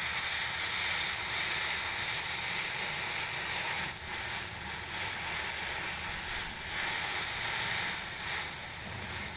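Oxy-fuel cutting torch flame hissing steadily as it burns through a steel shaft.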